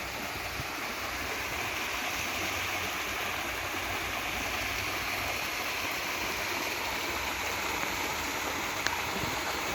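Steady rushing of a river in flood, swollen by rain.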